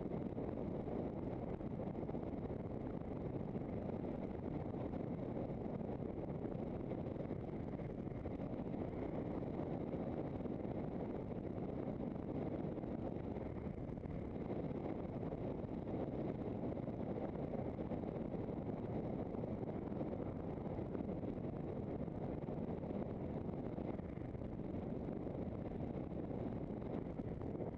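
Steady rumble of wind on the microphone and tyres rolling on tarmac as a handcycle rides along a main road.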